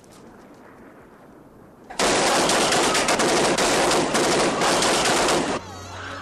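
Several submachine guns firing together in one continuous automatic burst, starting about two seconds in and lasting about three and a half seconds before cutting off. Low music tones come in just after the firing stops.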